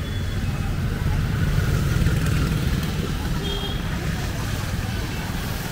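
Street traffic on a wet road: motorcycles and electric rickshaws passing close, with a low rumble that swells about two seconds in and a few short, high beeps.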